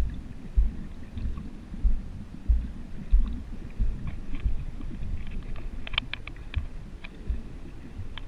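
Muffled underwater sound through a GoPro's waterproof housing: a low rumble with dull thuds of water pushing against it, about one every half second to second. A few sharp clicks come about six seconds in.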